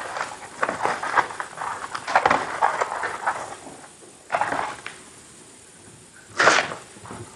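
Close-miked eating of Oreo cookies: irregular crunching and chewing, with a lull and then one loud crunch near the end.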